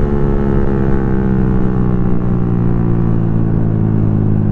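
Suzuki Raider F.i motorcycle's single-cylinder four-stroke engine running under way, its note falling slowly as the bike eases off.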